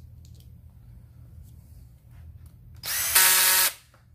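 Cordless drill-driver motor running for about a second near the end, spinning up and then holding a steady whine before stopping abruptly, as it drives in a screw on a chainsaw carburettor's diaphragm cover. A few faint clicks of small parts being handled come before it.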